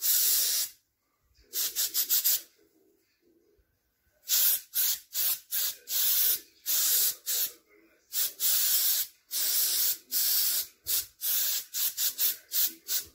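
Compressed-air paint spray gun spraying paint in a series of short hissing bursts as the trigger is pulled and released, with a pause of about two seconds early on.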